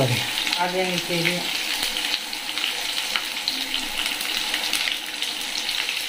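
Hot oil sizzling and crackling steadily in a small pan as green chillies fry.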